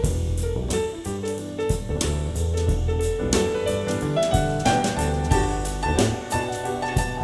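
Instrumental jazz with piano, a steady bass line and a drum kit keeping regular time, played back through an in-ear monitor.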